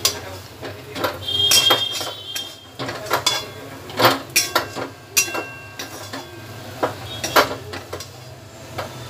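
Metal spatula scraping and clinking against a metal kadai as a thick chana dal mixture is stirred continuously. The scrapes come at irregular intervals, and a few give a brief metallic ring.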